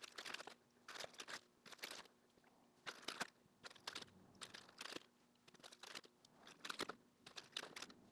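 Faint crinkling of plastic bags as hand tools are unpacked from their packaging, in short rustling bursts about once a second, with small clicks of metal sockets and ratchets being handled and set down.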